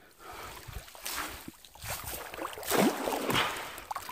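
A cast net being thrown: a swish and splash as the net lands on the water, with water dripping from the wet hand-line, loudest a little before the end.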